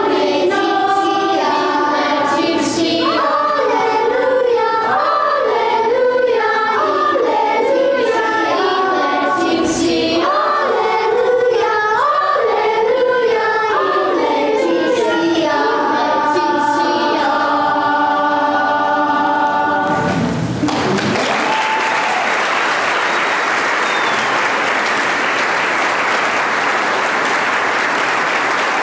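Sixth-grade children's choir singing, ending on a long held chord about twenty seconds in, followed by the audience applauding.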